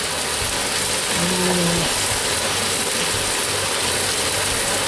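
Butter and brown sugar sizzling in a hot cast iron Dutch oven, with a utensil stirring and scraping around the pan.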